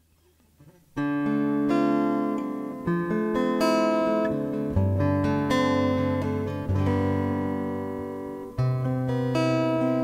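Background music: after a second of near silence, a plucked string instrument starts, playing slow ringing notes that overlap and sustain.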